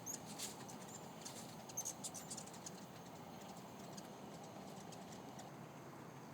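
Hummingbirds chirping: quick, high, thin chirps and clicks, busiest in the first couple of seconds and then thinning out, over a faint steady background hiss.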